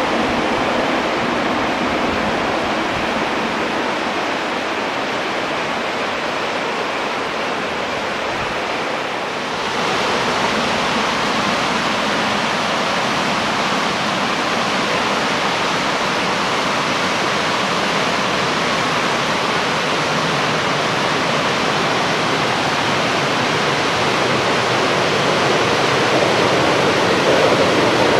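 Fast-flowing mountain river rushing over stones, a steady hiss of water. The sound changes abruptly about a third of the way in and grows a little louder near the end.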